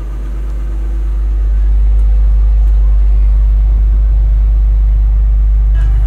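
Cat C7.1 diesel engine of a CAT 323 excavator running, heard from inside the cab as a steady low rumble that grows louder over the first couple of seconds and then holds level.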